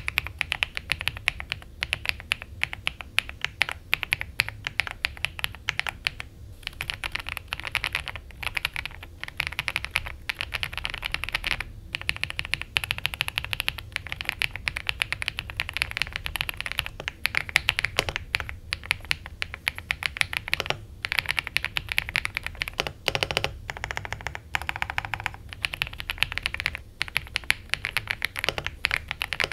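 Typing on an Ajazz AK820 Max mechanical keyboard with pre-lubed Ajazz Avocado linear switches and a foam-modded build: a fast, continuous clatter of keystrokes with a few short pauses.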